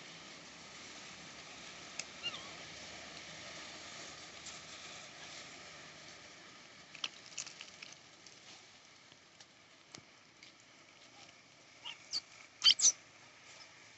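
Monkeys: a brief falling squeak about two seconds in, a few light clicks, and two or three sharp, loud high squeaks near the end, over a steady faint outdoor hiss.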